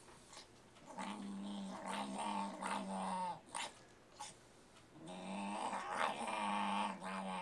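Small dog growling over its bowl of ice cream in two long, steady growls, the sound of a dog guarding its food.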